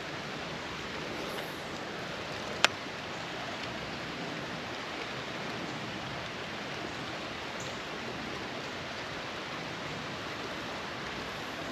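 Creek water running steadily, with a single sharp click about two and a half seconds in.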